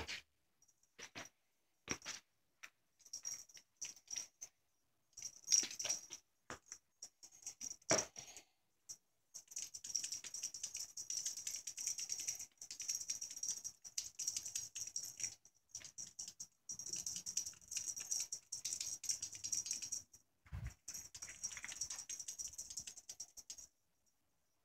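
A cat's collar tag jingling in quick irregular runs as the cat rolls and bats at a rope teaser toy, with soft patting and a few sharper knocks against the bedding. The jingling thickens into near-continuous runs from about ten seconds in, broken by short pauses.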